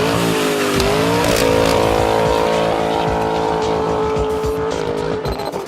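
Dodge Challenger T/A 392's 6.4-litre HEMI V8 running through a Kinney's Tunnel Ram performance exhaust. It revs up, dips briefly about a second in, then climbs again and holds a steady high rev for about three seconds before dropping off near the end.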